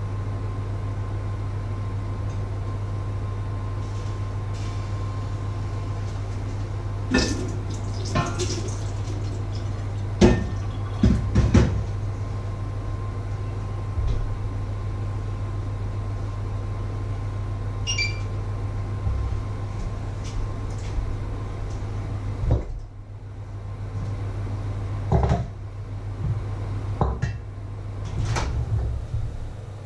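Kitchen handling noises: a metal pot, its lid and a steamer insert knocking and clattering a dozen times, with a light metallic tinkle in between. A steady low hum runs underneath.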